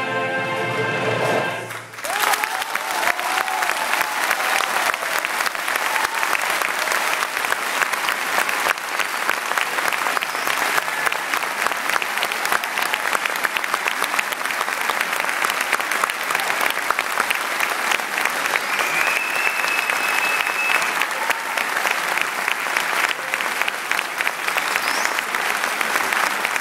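A choir's held final chord ends about two seconds in, and the audience breaks into steady applause that goes on to the end.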